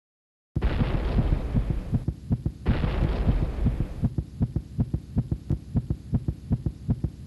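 Dramatic soundtrack effect: after a brief silence, a low throbbing pulse sets in, in quick, evenly spaced beats, with a hissing noise over it for the first few seconds.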